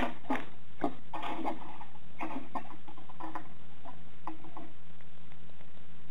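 Plastic earphone parts and cable handled on a wooden table: a run of small clicks, taps and rustles that stops a little over four seconds in, over a steady low hum.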